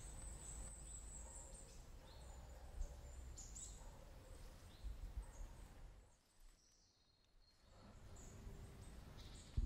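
Faint outdoor ambience: a low steady rumble with a few brief, high bird chirps. It drops to near silence for about a second and a half around six seconds in, then comes back.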